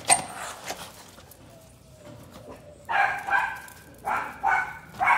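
Small terrier-type dogs barking excitedly in short barks: a pair about three seconds in, another pair a second later and one more near the end. A sharp click comes first, right at the start.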